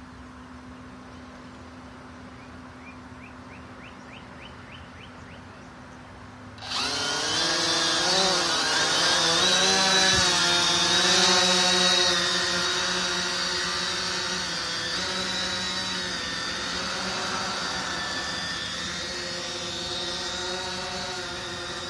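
CX-20 quadcopter's four brushless motors starting up suddenly about a third of the way in, a loud whine whose pitch wavers as it lifts off and hovers, then slowly fading as it flies away.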